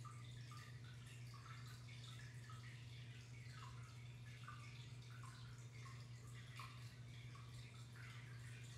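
Faint aquarium water trickling and dripping in many small irregular splashes, over a steady low hum.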